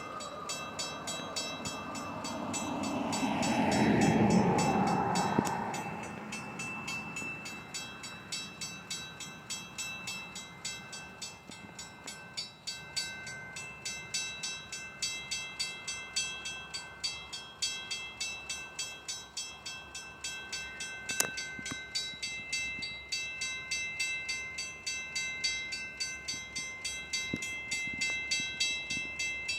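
Herzog work train passing: a loud rumble swells and peaks about four seconds in as the locomotive goes by, then the cars roll past with a steady, even rhythm of wheel clicks over the rail joints.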